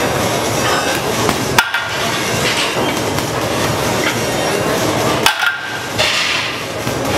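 Two sharp clanks from a loaded barbell, about a second and a half in and again about five seconds in; the second is the bar with its iron plates being set down. Behind them runs a steady, noisy gym background.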